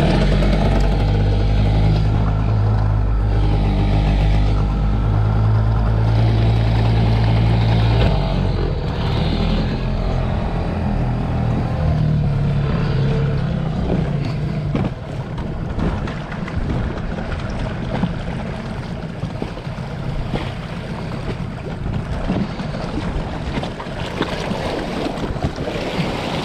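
Nissan outboard motor on an inflatable dinghy running, loud and steady for the first eight seconds. Its pitch shifts about eight seconds in and again a few seconds later. From about fifteen seconds it sounds quieter under wind and water noise, with scattered knocks.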